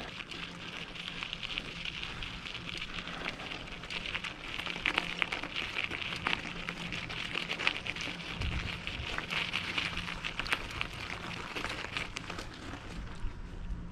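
Bicycle tyres rolling over a gravel road: a steady crackling crunch of many small clicks, with one low thump past the middle.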